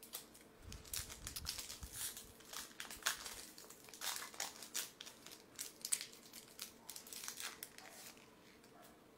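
Foil wrapper of a Yu-Gi-Oh! booster pack crinkling and tearing as it is opened by hand, with cards handled and slid out. The crackling comes in quick irregular bursts and dies away near the end.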